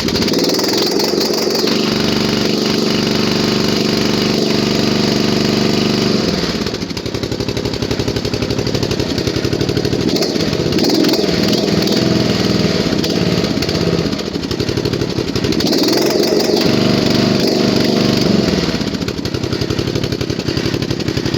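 Straight-piped 13 hp Craftsman riding mower engine, freshly cold-started in freezing weather, revved up and held high three times, dropping back to idle in between.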